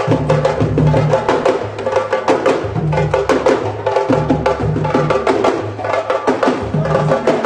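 Senegalese griot drummers playing a fast, dense rhythm of sharp, crisp strokes, with low pitched notes running underneath.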